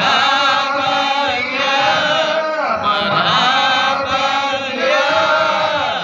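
A group of voices chanting an Islamic devotional song (shalawat) together, melodic and unbroken, with long held notes.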